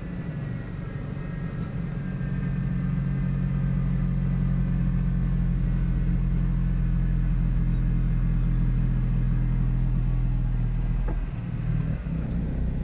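Dodge Caliber's 2.4-litre four-cylinder engine running steadily, now started despite the transmission being stuck in R.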